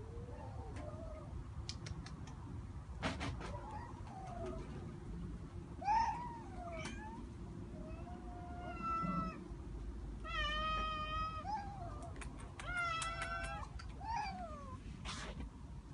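Domestic cat meowing: a run of calls starting about six seconds in, some short and falling, others drawn out and wavering. A few sharp clicks as well.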